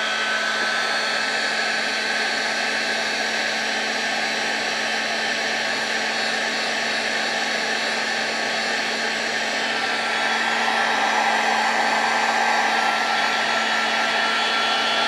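Hot-air blower running steadily to shrink heat-shrink tubing over a soldered wire joint. It is a steady rush of air with a motor hum, and it switches off near the end.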